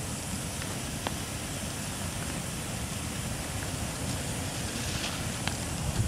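Brush-and-cardboard bonfire burning with a steady rush, with a few sharp crackles about a second in and twice near the end.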